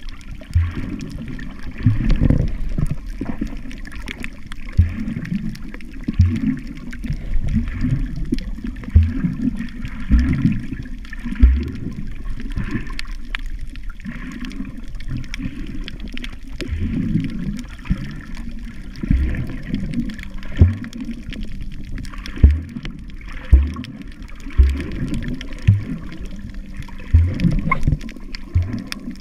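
Muffled water sloshing and moving around a camera held underwater while snorkeling, with irregular low thumps every second or two.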